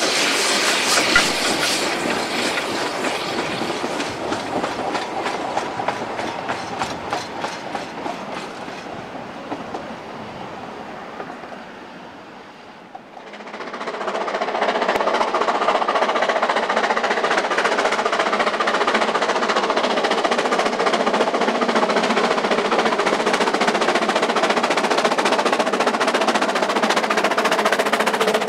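Narrow-gauge steam locomotive working a train of slate wagons, its rapid exhaust beats fading away. After a brief lull about halfway through, a steady running noise from a second narrow-gauge steam train, double-headed, takes over.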